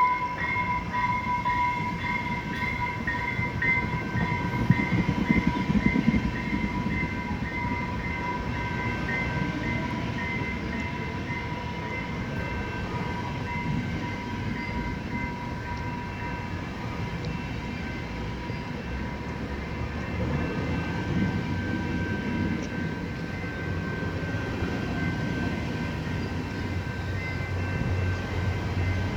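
Exo commuter train on the St-Jérôme line running through the station with a steady rumble of wheels on rail. A bell rings about twice a second over the first half and fades. A low engine hum builds near the end.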